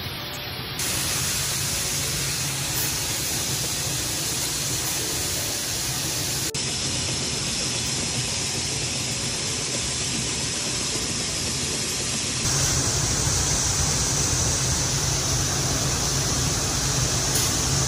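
Steady rushing noise of grain-handling machinery: shelled corn being augered out of a steel bin, carried up the bucket elevator and pouring out the spout into a semi trailer. The level jumps up abruptly about a second in and again near the end.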